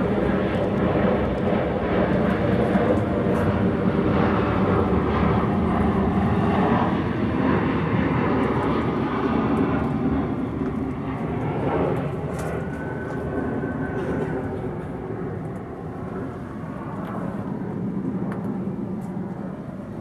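A large engine droning steadily and loudly, fading gradually after about ten seconds.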